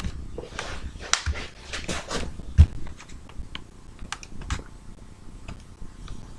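A sleeping dog breathing noisily in soft, hissy swells, with scattered small clicks and one louder thump about two and a half seconds in.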